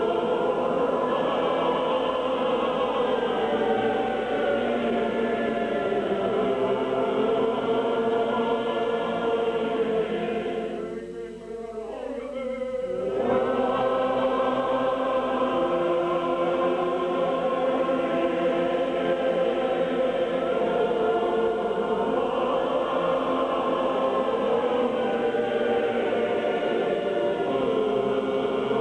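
A congregation singing together as a choir of many voices, sustained and steady. The singing briefly dies away about eleven seconds in, then starts up again.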